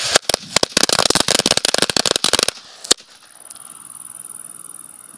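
A string of Pyragric Lady Cracker firecrackers going off: a rapid, uneven run of many sharp cracks lasting about two and a half seconds, with one last crack a moment later.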